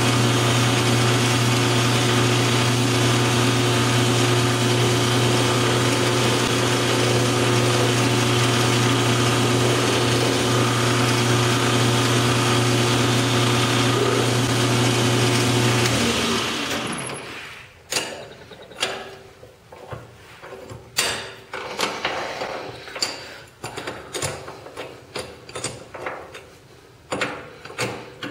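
Metal lathe running steadily with a steady motor hum while a spotting drill in the tailstock chuck is fed into the end of a steel set screw. About 16 seconds in the lathe is switched off and the hum stops, followed by scattered light clicks and clinks.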